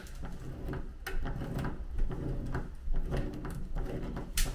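Metal clicks and scrapes of Knipex Cobra pliers turning a rusted screw out of a shower faucet handle stem, with a wrench holding the stud. The clicks come at irregular intervals; the sharpest is near the end.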